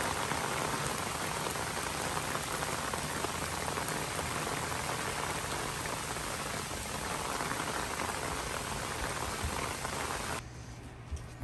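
Steady heavy rain falling on wet pavement, grass and standing puddles. About ten seconds in it cuts off abruptly to a much quieter room tone.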